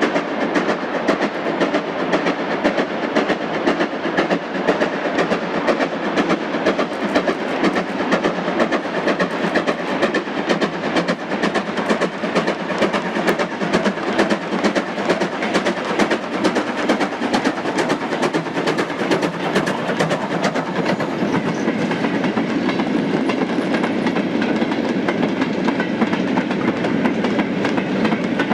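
Steam locomotive working hard on a freight train, its exhaust chuffing, with the wagon wheels clattering over the rail joints. Toward the end the sound settles into a steadier, louder rumble of loose-coupled wagons rolling past close by.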